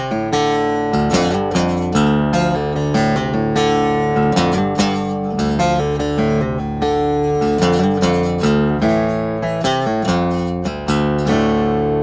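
Background music of plucked and strummed guitar, notes struck in a steady rhythm.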